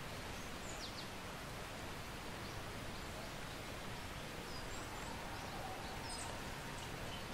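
Outdoor ambience: a steady background hiss with a few faint, scattered bird chirps.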